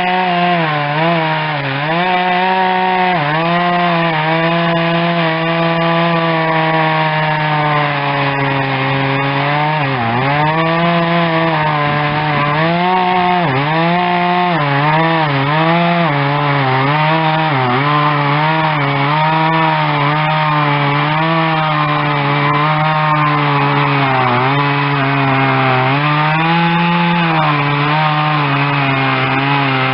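Husqvarna 236 two-stroke chainsaw cutting through wood at high revs, its engine note dipping and recovering again and again as the chain bites and the load changes.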